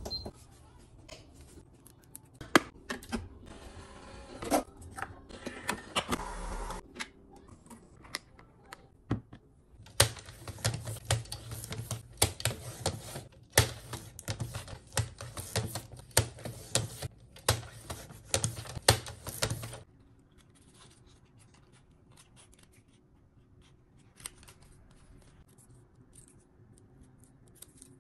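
Paper being cut on a sliding paper trimmer: a dense run of sharp clicks and scrapes through the middle, with fainter paper handling before and after.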